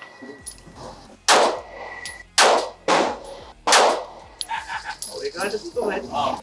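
A 9mm semi-automatic pistol fired four times at uneven intervals, roughly half a second to a second apart. Each shot is a sharp crack followed by a short echo.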